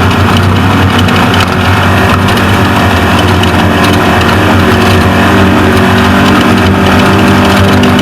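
Off-road race truck's engine running hard at a steady pitch, over a loud rushing noise of wind and terrain.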